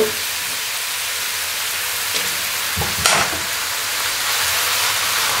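Onions, red peppers and chicken breasts sizzling steadily in a cast-iron Dutch oven, with a brief knock about three seconds in as the pieces are arranged with a wooden spatula.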